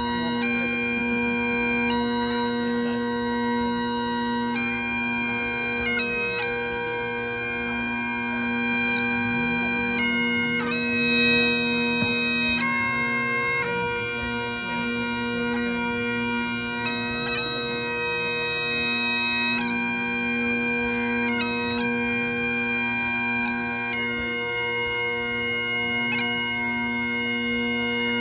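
Great Highland bagpipes playing a slow tune: steady drones under the chanter's melody, its notes changing every second or two.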